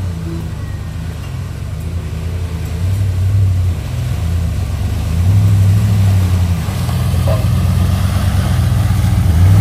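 Ram 1500 pickup truck's engine revving in surges as it pushes through a muddy water hole, getting louder as it comes closer, with mud and water churning under the tyres.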